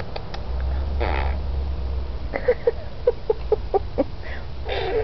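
Small terrier standing in a kiddie pool, giving a short vocal call about a second in, then a quick run of about seven short yips and another call near the end.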